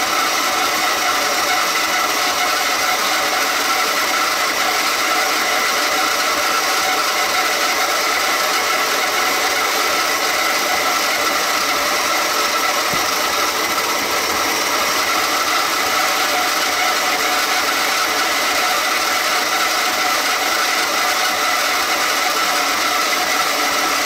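Battery-powered motor of a 1968 Suzy Homemaker toy washing machine running steadily, driving its agitator through the wash water.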